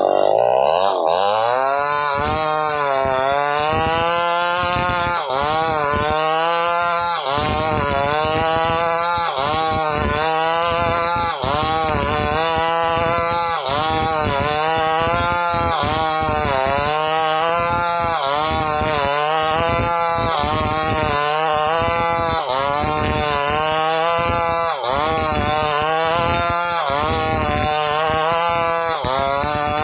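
Two-stroke chainsaw revving up, then cutting under load as it rips timber lengthwise. Its engine note dips and recovers about every two seconds as the bar is worked back and forth in the cut.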